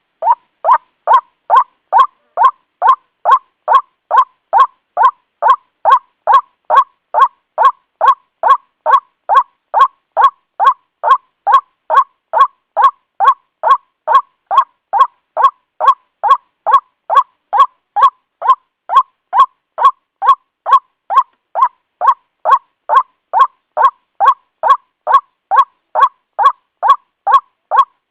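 White-breasted waterhen (ruak-ruak) calling, a short nasal 'kru-ak' repeated about twice a second at a very even pace, as in a looped bird-lure recording.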